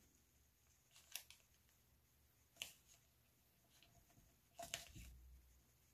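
Near silence with a few faint paper sounds: two soft ticks, then a brief rustle near the end, as scrapbook paper is pressed down inside a paper bag pocket.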